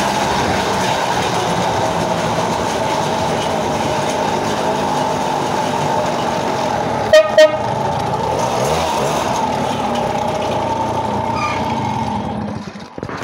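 Moped tricycle's small two-stroke engine running steadily under load as it climbs a steep hill, with two short horn beeps about seven seconds in. The engine eases off near the end.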